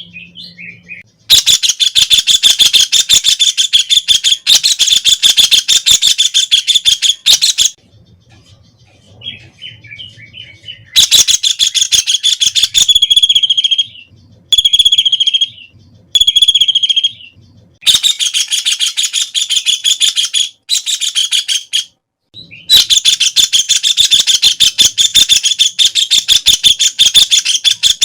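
White-throated kingfisher calling: loud, rapid rattling trills several seconds long, four bouts in all, with three short, separate whistled notes in the middle of the clip.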